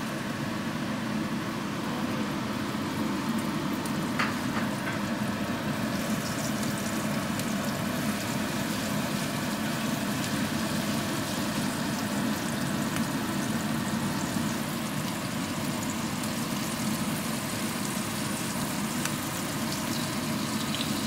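Floured trout fillet frying in hot fat in a cast-iron skillet: a steady sizzle as it cooks skin side down, over a low steady hum.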